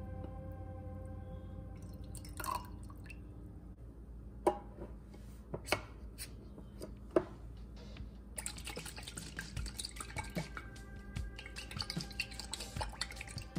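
Lemon juice poured into a glass jar of oil, then a metal lid set and pressed on with three sharp knocks. From about eight seconds in, the closed glass jar of salad dressing is shaken hard, the liquid sloshing rapidly inside.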